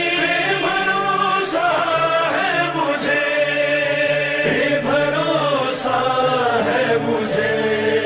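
Voices chanting a Shia mourning lament (noha) together in a slow, wavering melody over a low held tone, without a break.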